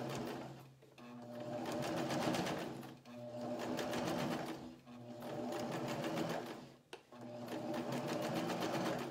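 Electric household sewing machine topstitching around the edge of a fabric bib, running in stretches of about two seconds with brief stops between them as the fabric is guided around the curve.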